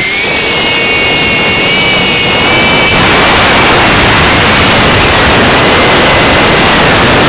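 FPV quadcopter's electric motors and propellers, heard through the onboard action camera's microphone: a loud high whine that wavers slightly in pitch, over heavy rushing wind noise that grows louder about three seconds in.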